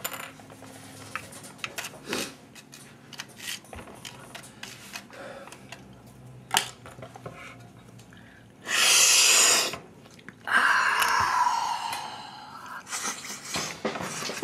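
Two hard snorts through the nose, the first short and sharp about nine seconds in, the second longer and fading, as powder is sniffed up from something held to the nostril. Faint small clicks and rustles of handling come before them.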